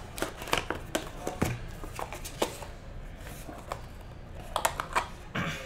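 Hands opening a cardboard trading-card hobby box: a string of short, uneven clicks, taps and scrapes of cardboard being handled and pried open.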